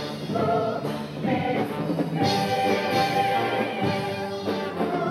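Upbeat show-choir music: band accompaniment with the choir's voices over it, a note held from about two seconds in.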